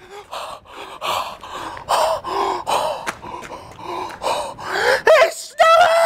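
A man gasping and panting in excitement, a run of short breathy bursts, then a rising cry that turns into a long, loud yell near the end.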